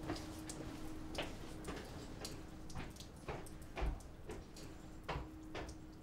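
Soft separate clicks, roughly two a second and not quite even, over a faint steady low hum.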